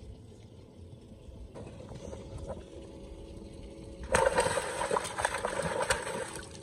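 A hooked redfish thrashing and splashing at the water's surface. The splashing starts suddenly about four seconds in, lasts a couple of seconds, then dies away.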